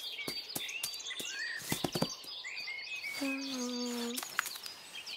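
Cartoon birdsong chirps in the background, with a few soft taps in the first two seconds. A little after three seconds a cartoon cat gives a low, held moan of about a second that drops slightly in pitch.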